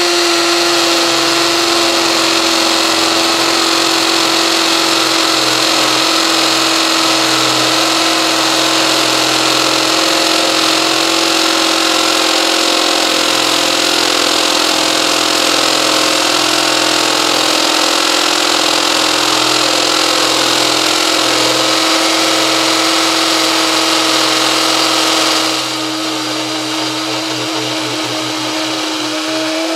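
Milwaukee 2802 cordless hammer drill running continuously under load, boring a masonry bit into concrete, pushed beyond its rated capacity. A steady buzzing pitch with grinding noise, a little quieter about 25 seconds in.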